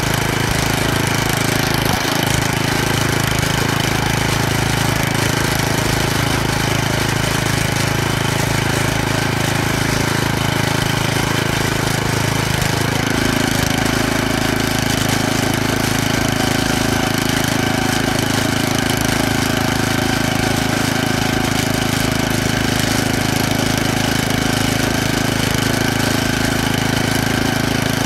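Planet Jr tractor engine running steadily as the tractor pulls finger weeders down a crop row. The engine drones without a break, and its tone shifts slightly about halfway through.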